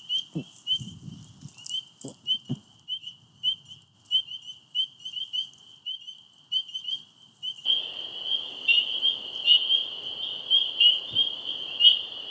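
Dusk chorus of peeping frogs: many short, high peeps repeating several times a second. About two-thirds of the way through the chorus gets louder and a steady, high insect hiss joins it.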